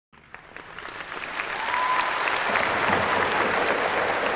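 Audience applause swelling up over the first second and a half, then holding steady, with a brief whistle-like note near two seconds in.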